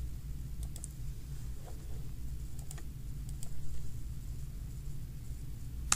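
A few scattered computer mouse clicks over a steady low hum, with a sharper click near the end.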